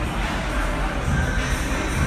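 Music playing over the hubbub of a crowd in a large hall.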